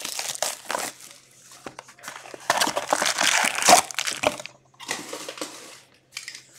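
Plastic shrink wrap crinkling and tearing as it is pulled off a hockey card box, then foil card packs rustling as they are taken out and stacked.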